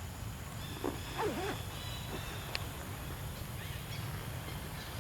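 A few short animal calls that bend up and down about a second in, over steady outdoor background noise with a faint high whistle and a single click midway.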